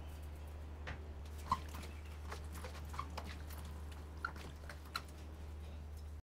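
Faint, scattered wet clicks and crackles of hands tossing salted, sliced eggplant strips in a plastic bowl, over a steady low hum. The sound cuts off suddenly near the end.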